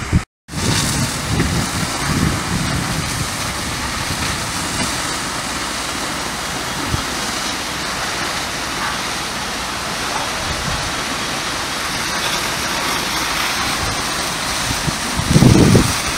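Steady rushing hiss of several fire-hose jets spraying water onto a burning thatched roof, with a few loud low thumps near the end.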